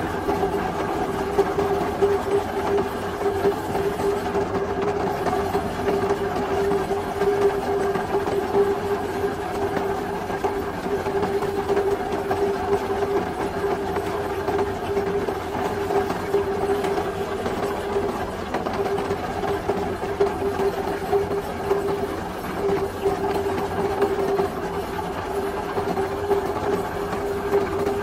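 Heavy machinery running steadily, with a constant hum over a continuous rattle.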